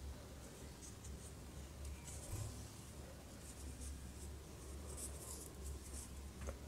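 Faint, soft rustling and scratching of yarn and fingers as a crochet hook works stitches, coming and going a few times over a steady low hum.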